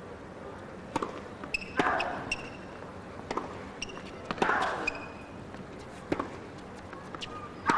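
Tennis rally: rackets striking the ball back and forth, a sharp hit about every second and a half, with short squeaks of shoes on the hard court between hits.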